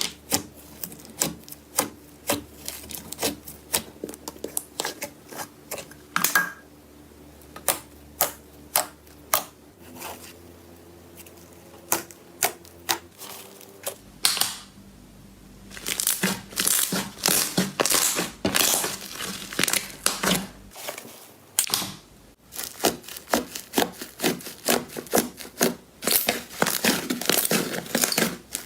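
Slime being pressed and poked by hand, giving a run of sharp clicks and pops, with thicker stretches of crackling near the middle and toward the end.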